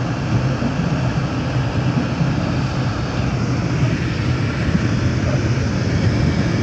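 Car driving, heard from inside the cabin: a steady low engine hum under even road and tyre noise.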